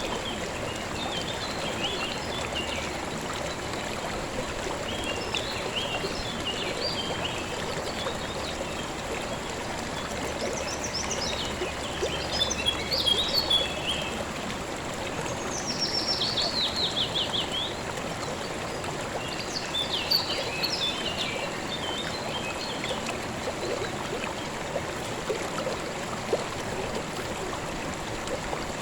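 Steady flowing-water sound of a calm river or stream, with small birds chirping intermittently over it. Around the middle one bird gives a quick trill that falls in pitch.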